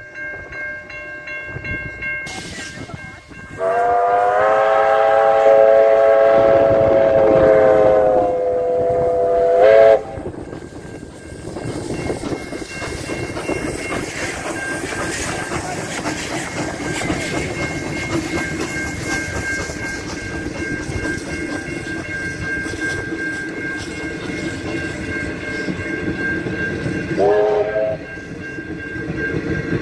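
Steam locomotive R761, a Victorian Railways R class 4-6-4, sounds a long steam whistle blast of about six seconds. Its train then rolls past with a steady rumble of wheels on rails, and a short whistle toot comes near the end. A level crossing bell rings throughout.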